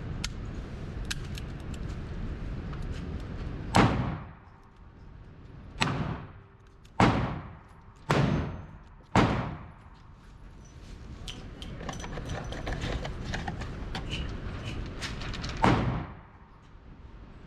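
Six handgun shots in an indoor range, each echoing and fading off. The first five come about a second apart, with a short gap after the first, and the sixth comes several seconds later. Faint light clicks are heard between them.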